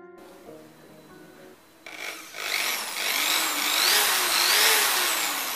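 Electric drill spinning a circular saw blade mounted on its chuck, with no wood being cut. It starts up about two seconds in, then runs loud with a whine that wavers up and down in pitch, and begins to slow near the end.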